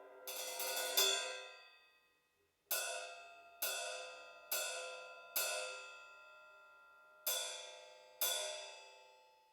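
Sabian AAX Stage Ride 20-inch ride cymbal being struck: a quick cluster of hits about half a second in that rings out and dies away, then single strikes, four about a second apart, a pause, and two more, each ringing with a bright shimmer and fading.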